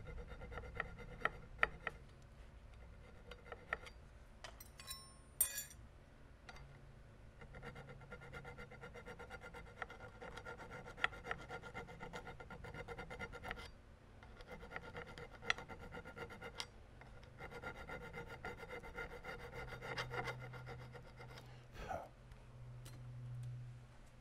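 Hand file stroking back and forth across a threaded metal chamber sleeve clamped in a vise, in long runs of rasping strokes with a faint metallic ring. A few sharp clicks and a ringing metal clink come before the filing starts, and a single knock comes near the end.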